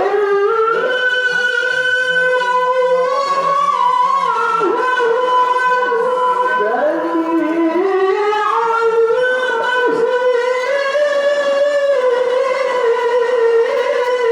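Melodic Quran recitation (tilawah) by a single unaccompanied male reciter, holding long high notes with ornamented turns and slides. It begins abruptly and keeps going without a pause.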